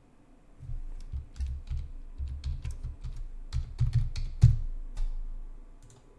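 Typing on a computer keyboard: quick, irregular keystrokes with dull thumps, the loudest about four and a half seconds in, stopping about five seconds in.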